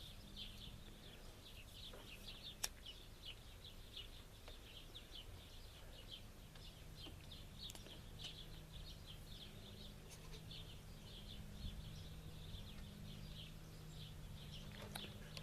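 Birds chirping steadily in quick short high notes, over the faint, steady low hum of a tractor engine pulling a large square hay baler.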